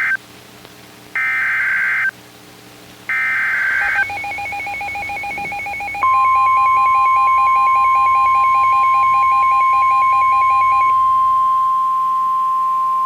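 Emergency Alert System SAME header: three one-second bursts of warbling data tones with a second's gap between them. Then a fast pulsing electronic beep, and about six seconds in the steady 1050 Hz NOAA Weather Radio warning alarm tone begins and holds, signalling a new warning, here a special marine warning.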